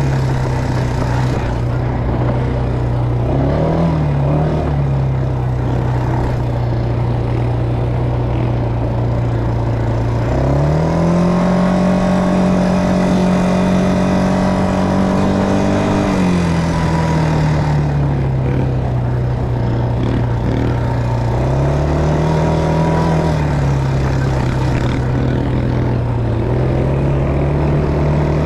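ATV engine running while being ridden, holding a steady pitch with short throttle blips; about ten seconds in it revs up and holds higher for about five seconds before dropping back.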